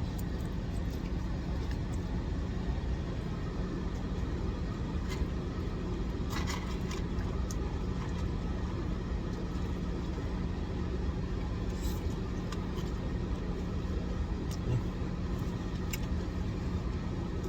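Steady low rumble of a car's engine idling, heard from inside the cabin, with a constant low hum and a few faint clicks.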